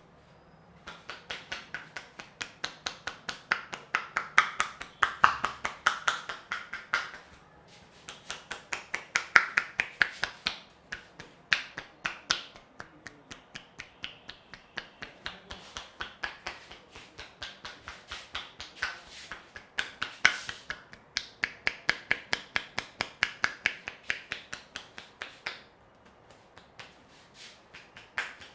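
A barber's hands striking in quick percussive massage strokes (tapotement), crisp slaps and clicks at about five a second, in runs broken by brief pauses.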